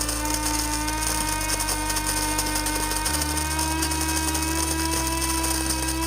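Cuisinart Supreme Grind burr coffee grinder's electric motor grinding coffee beans: a steady whine, its pitch creeping slightly higher.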